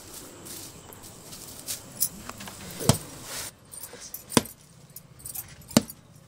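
A ripe toddy palm fruit being struck down against the floor: three heavy thuds about a second and a half apart, starting about halfway through, with a few lighter knocks before them.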